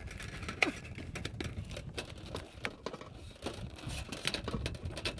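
Thin aluminum fascia being worked up under a metal drip edge: scattered clicks, crinkles and scrapes of the sheet metal, with one sharp click under a second in.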